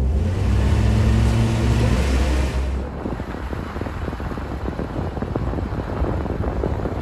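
Jeep Wrangler engine pulling away, its hum rising slightly for the first few seconds. Then a steady rumble of tyres on a snow-covered dirt road with a dense crackle and wind noise, heard from inside the cab.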